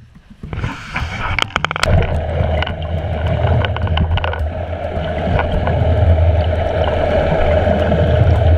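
Muffled underwater sound through a submerged action camera: a trolling boat's engine and propeller droning steadily, with churning wake water. In the first couple of seconds there are splashes and knocks as the camera goes into the water.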